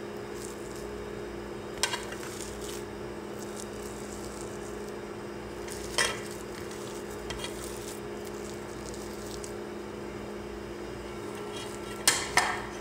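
A few short clinks of a fork against a ceramic plate and bowl as mashed potato is scraped into the bowl: one about two seconds in, one about six seconds in, and a quick pair near the end. Under them runs a steady low hum.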